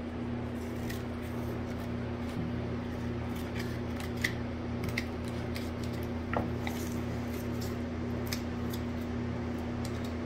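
Boning knife slicing meat off a deer's hind leg, with scattered light clicks and scrapes of the blade and a metal meat hook, over a steady low hum.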